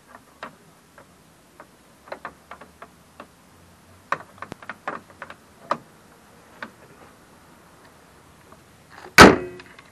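A run of light clicks and taps, then the bonnet of a Mazda Biante minivan slammed shut about nine seconds in: one loud bang with a short metallic ring.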